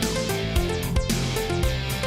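Background music with a steady electronic beat and a melodic line.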